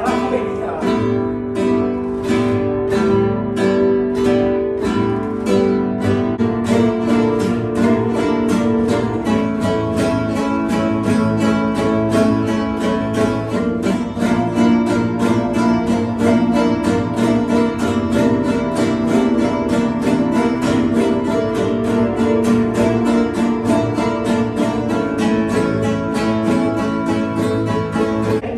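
Several flamenco guitars strumming together in unison, practising the index-first rasgueado in a steady, quick rhythm of chords.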